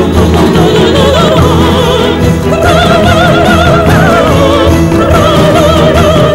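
Orchestral music with a high operatic voice singing a melody with strong vibrato.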